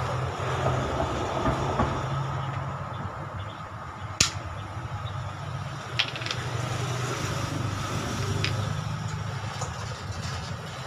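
A motor vehicle engine idling with a steady low hum that swells and eases. Two sharp clicks stand out, the loudest about four seconds in and a smaller one about six seconds in.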